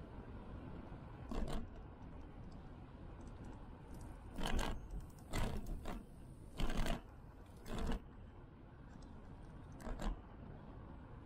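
Bicycle ride noise picked up by a bike-mounted camera: a steady low rumble of tyres and air, broken by about half a dozen short rattling, crackling bursts at irregular intervals as the bike jolts over bumps in the path.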